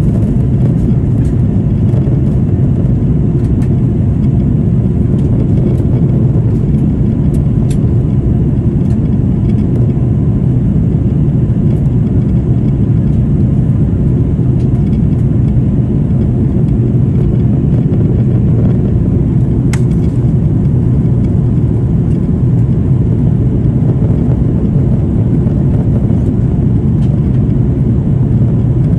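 Steady low rumble of jet airliner cabin noise in flight, the engines and rushing airflow heard from inside the cabin at a window seat.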